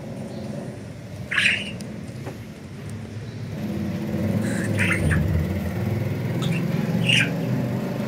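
Budgerigar giving three short, sharp chirping calls a few seconds apart. A low engine-like rumble in the background grows louder about halfway through.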